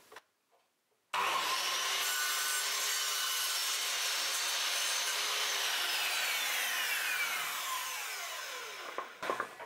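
Metabo KGS 216 M mitre saw starting suddenly about a second in, its blade cutting into a wooden strip. The motor is then released and the blade spins down with a long falling whine, followed by a few light knocks near the end.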